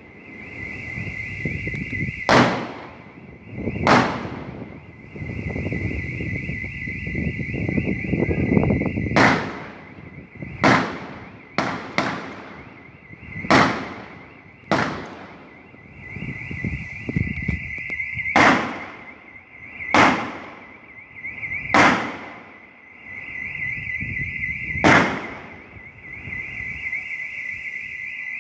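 Distant gunshots in a street firefight, about a dozen single shots fired irregularly one to four seconds apart, each ringing out with an echo. A steady high-pitched alarm sounds continuously underneath.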